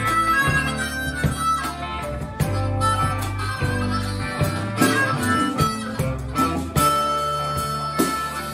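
A live rock band playing, with drums, bass guitar and electric guitar under a lead line of long, held high notes.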